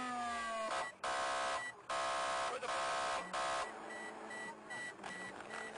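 Police car's electronic siren finishing a falling wail, then sounding a series of short, harsh buzzing horn blasts over about three seconds, before dropping away to quieter car and road noise.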